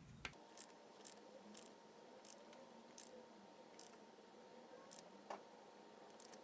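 Near silence with faint, spaced clicks, roughly one every half second to second, from a torque wrench being worked on a 42RE automatic transmission's rear band adjusting screw, which is being tightened to 72 inch-pounds until the wrench clicks.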